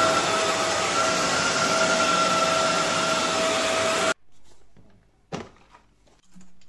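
Kärcher FC 5 hard-floor cleaner running over wet tiles: a steady two-toned motor whine over a constant hiss. It stops abruptly about four seconds in, leaving a much quieter stretch with a single sharp click.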